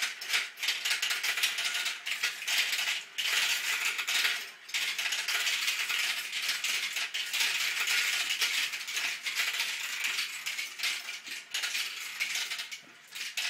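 Marbles rolling and clattering down a plastic marble-run tower: a near-continuous rattle of quick clicks, with brief breaks about four and a half seconds in and near the end.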